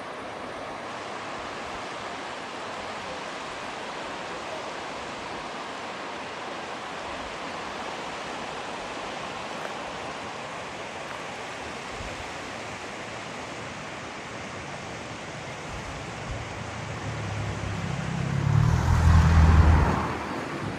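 Steady rush of a stream swollen with rainwater. Near the end a low rumble swells up, becomes the loudest sound for a couple of seconds and fades again.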